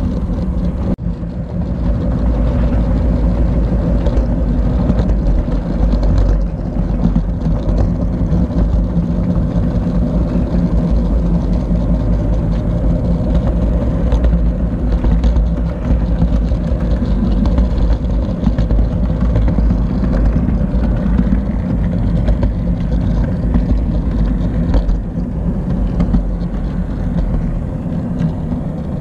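An HO-scale model train running along its track, heard close up from a camera riding on the train: a steady whirring running noise.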